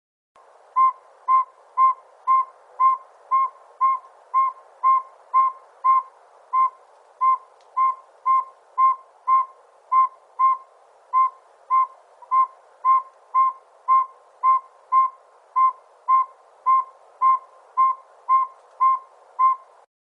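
Northern saw-whet owl giving its advertising song, the long series of whistled toots typical of a male on territory. The toots are evenly spaced at about two a second and hold one steady pitch, over a faint background hiss.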